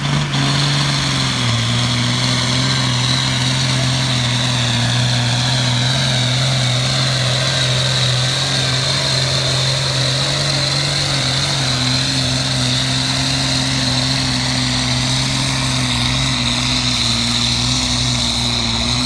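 Diesel tractor engine held at full throttle under heavy load as it drags a tractor-pulling sled: a steady deep drone with a high whine over it. The engine note rises slightly about a second in, then holds.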